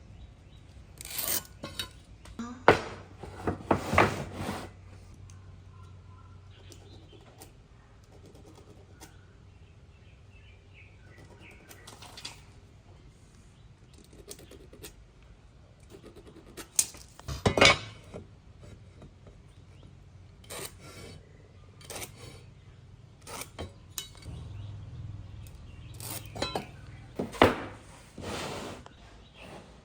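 Irregular sharp knocks and clinks of tools and timber being handled, with clusters about three to four seconds in, around seventeen seconds and near the end, over a low steady hum.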